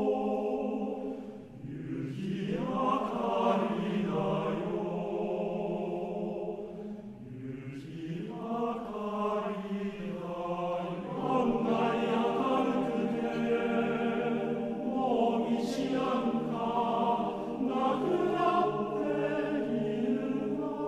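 Men's choir singing sustained multi-part harmony. The voices dip briefly about a second and a half in and again around seven seconds, each time sliding up into the next phrase.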